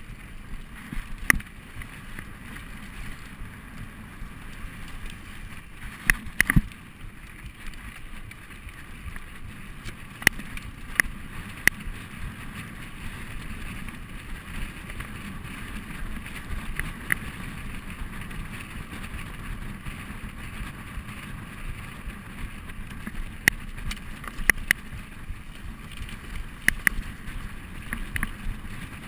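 Mountain bike rolling fast down a dirt forest trail: a steady rush of tyre and wind noise, broken now and then by sharp clacks as the bike jolts over bumps.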